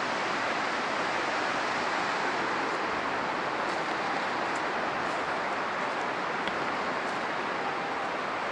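Steady rushing noise of strong wind through pine trees and undergrowth.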